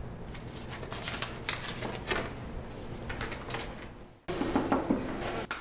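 A run of light clicks and knocks, like small objects being handled. It drops away about four seconds in, then picks up again, louder.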